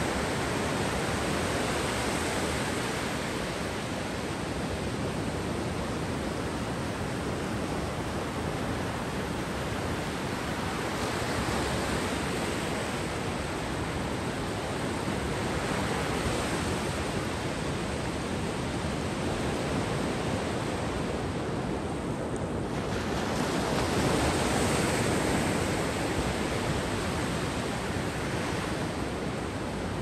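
Mediterranean surf washing onto the beach: a steady rush of breaking waves that swells and eases, with a louder swell about three-quarters of the way through.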